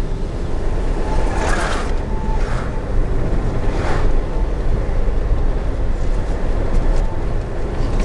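Steady road and engine rumble heard inside a moving taxi, with other vehicles whooshing past a few times, the loudest about four seconds in.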